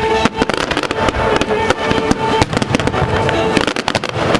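Fireworks going off in quick succession: many sharp bangs and crackles, over music with long held notes.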